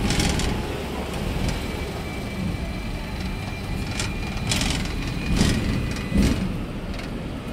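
Hong Kong double-decker electric tram running along its street track, heard from the upper deck: a steady low rumble with a faint high whine, and a few short knocks in the second half.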